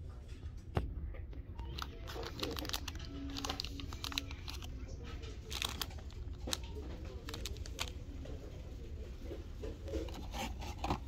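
Plastic candy bags crinkling and rustling as they are handled and pulled on store peg hooks, in irregular sharp crackles.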